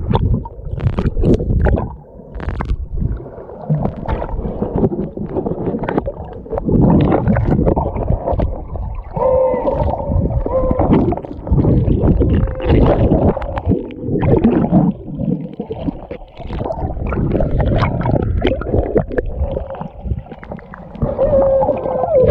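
Water sloshing and gurgling heard underwater, muffled and low-pitched, with brief muffled tones about nine seconds in and again near the end.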